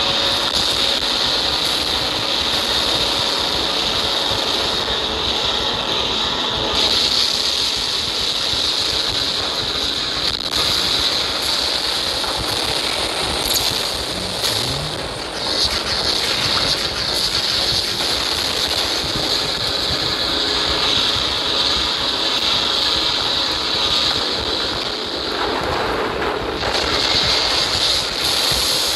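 Battle sound effects from a computer animation: a loud, dense, continuous roar of mixed noise, with no separate shots or blasts standing out.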